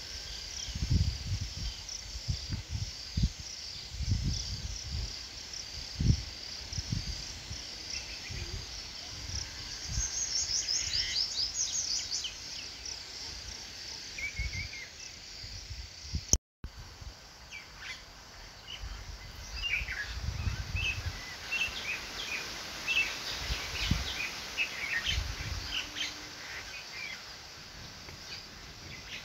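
Outdoor ambience of birds chirping and singing, with short high calls and trills throughout and low irregular rumbling noise beneath; the sound drops out briefly about halfway through.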